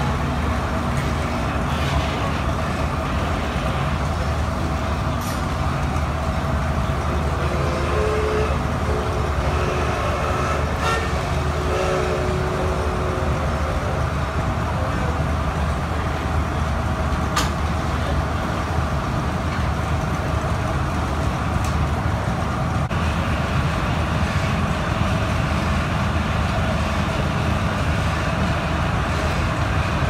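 Steam-powered sawmill running steadily: a constant low machinery rumble, with an occasional sharp knock and a faint held tone for a few seconds near the middle.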